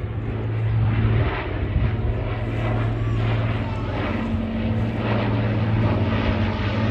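Avro Lancaster bomber's four Rolls-Royce Merlin piston engines and propellers running as it flies overhead: a steady, low, throbbing drone.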